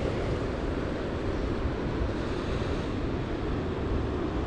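Sea surf washing in on a rocky shore, a steady rumbling wash, with wind buffeting the microphone.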